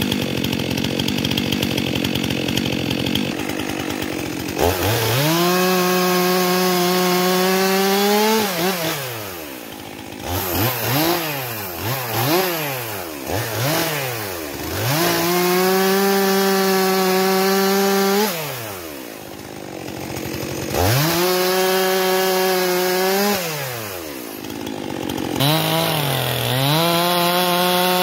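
Stihl MS 400 C two-stroke chainsaw bucking firewood: four times it is held at full throttle through a cut lasting about three seconds, dropping back between cuts. Between the first and second cuts it is blipped up and down several times in quick succession.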